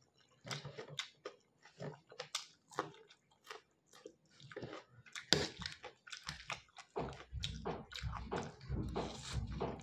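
Close-up eating sounds of a person chewing and biting Maggi instant noodles, with many short wet clicks and smacks. From about seven seconds in the sound becomes denser and more continuous as more noodles are taken in.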